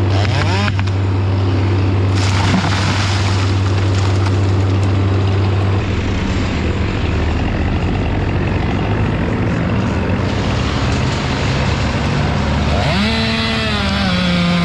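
Engine-powered equipment running steadily. About thirteen seconds in, a chainsaw revs up and holds at full speed.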